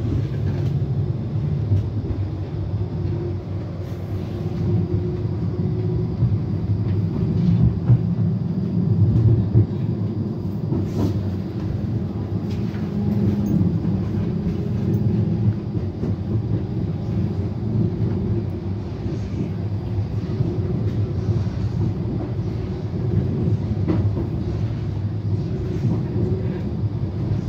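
A Brussels TNG low-floor tram in motion, heard from inside the passenger cabin. The wheels and running gear make a steady low rumble on the rails that swells a little now and then.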